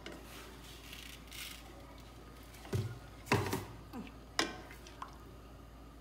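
A spoon stirring milk in a stainless-steel saucepan. It is faint at first, then about halfway through there are a few knocks and a sharp tap of the spoon against the pan.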